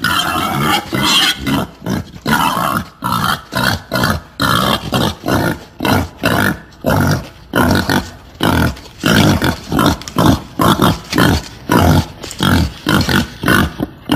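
Female wild boar grunting in a fast, unbroken run of short grunts, about three a second: a sow's call of the kind used to lure boars.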